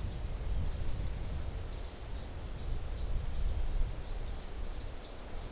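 Outdoor ambience: wind buffeting the microphone with an uneven low rumble, and faint, short, high chirps repeating every half second or so.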